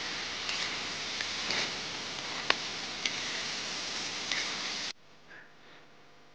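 Chicken pieces sizzling in a hot wok while a metal spatula stir-fries them, clicking and scraping against the pan several times, once sharply. The sizzling cuts off suddenly about five seconds in, leaving only faint sounds.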